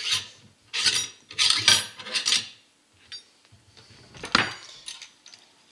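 SKS rifle's steel cleaning rod being worked out of its channel under the barrel: metallic scraping and clinking in a few bursts over the first two seconds or so, then a single sharp metal click a little over four seconds in.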